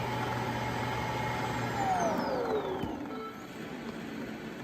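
Shark AV2501S self-empty base's suction motor running steadily as it empties the docked robot vacuum's dustbin. About two seconds in it winds down with a falling whine, and the sound is quieter by about three seconds.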